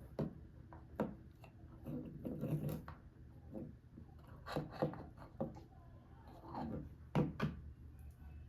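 Hands handling small objects at close range: a string of light taps and clicks with short rubbing and scraping sounds in between, the sharpest clicks a little after one second and again about seven seconds in.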